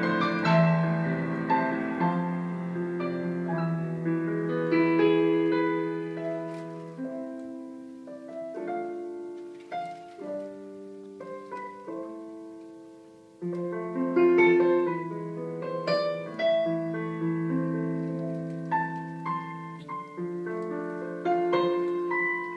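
Solo piano music, slow chords and held notes, thinning to a quiet passage about halfway through before coming back in louder.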